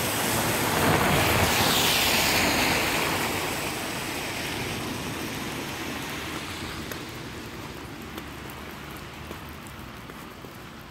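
A vehicle passing on a wet, slushy road: a wash of tyre hiss that swells over the first two seconds or so and then slowly fades away.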